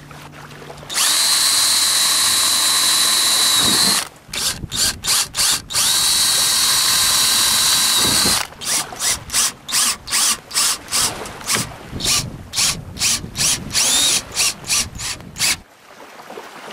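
Battery-operated drill running in two long steady high whines, each a couple of seconds, then in many quick trigger bursts, about two or three a second. This is the drilling and screw-driving of number 8 screws into the kayak leaning post's X bracing.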